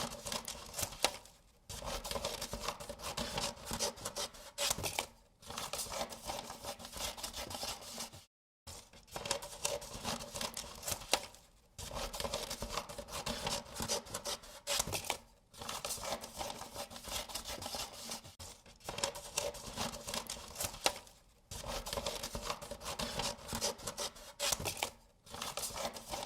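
Paper being cut, in runs of rapid cutting strokes about three seconds long, separated by brief pauses.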